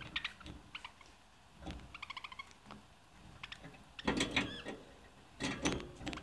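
Budgerigars chirping and chattering in quick clicks and short warbles, with louder bursts about four seconds in and again about five and a half seconds in.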